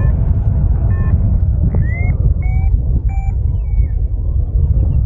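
Airflow buffeting the microphone of a paraglider in flight close to the ground: a steady, loud low rumble. A few short high chirps sound in the middle.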